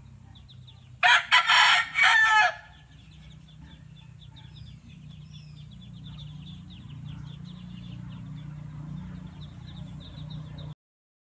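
A rooster crows once, loud, about a second in, over a farmyard where a fast, steady high chirping carries on afterward.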